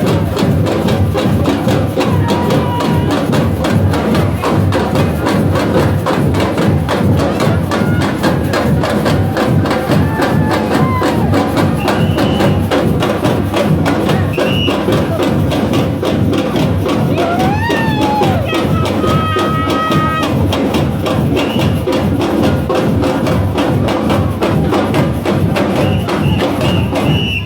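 Loud music with a fast, steady percussive beat.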